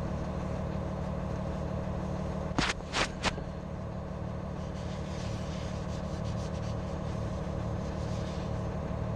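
Steady low hum of an idling engine, with three sharp knocks close together about two and a half to three seconds in. Faint rubbing of a rag wiping a metal jack foot pad.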